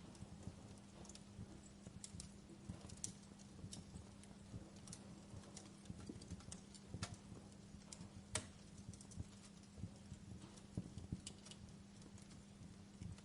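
Wood campfire crackling: irregular sharp pops and snaps over a low rumble of burning, with a louder snap about eight seconds in.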